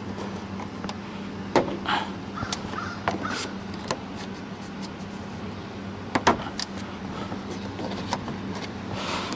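Plastic trim removal tool prying at the interior door trim panel of a 2013 Toyota RAV4, giving a few sharp plastic clicks and scrapes. The two loudest clicks come close together about six seconds in.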